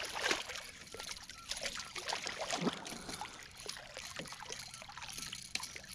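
A hooked white bass thrashing at the surface beside a kayak as it is drawn in: a string of short, irregular splashes and drips, loudest at the start.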